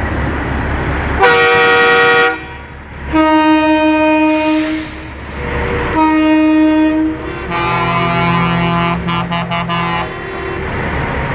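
Semi-truck air horns blowing four long blasts of different pitches, the last broken into several quick short toots near its end, over the low rumble of the trucks' running diesel engines.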